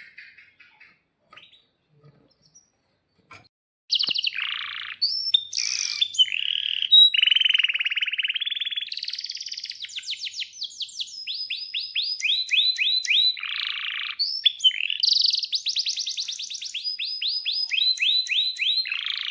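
Male domestic canary singing a long, continuous song. It starts about four seconds in, after a few faint chirps. The song is built of fast rolls and trills of rapidly repeated notes, shifting to a new pitch and pattern every second or so.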